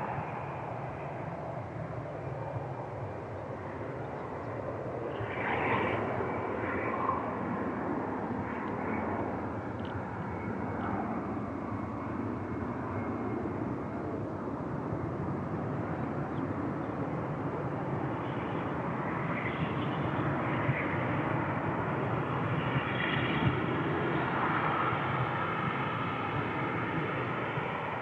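Jet engines of a Boeing 737 airliner on its landing approach: a steady rushing jet noise that slowly grows louder, with a whine of several tones coming in during the last few seconds.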